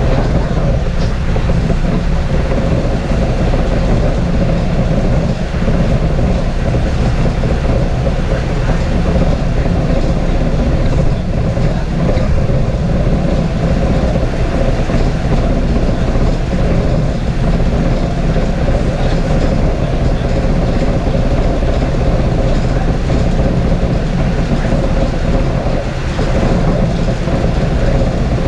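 Transit bus under way, heard from inside the cabin: a steady loud rumble of engine and road noise with a faint hum.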